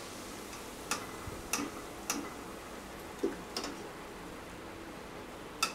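About six light, sharp clicks at irregular intervals from hands handling fried cauliflower florets on tissue paper, over a faint steady background hiss.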